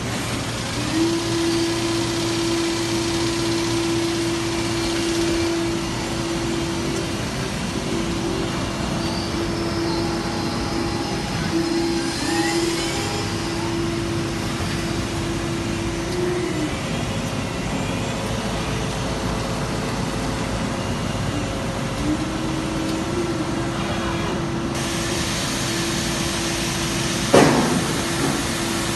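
CNC turning centre running a machining cycle: a steady mechanical hum under a steady tone that starts and stops several times, with a brief rising whine about halfway through. A hiss comes in near the end, followed by one sharp clunk.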